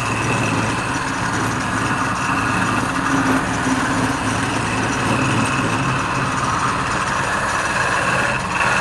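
Wood lathe running steadily, its motor hum carrying a steady high whine and a rushing noise.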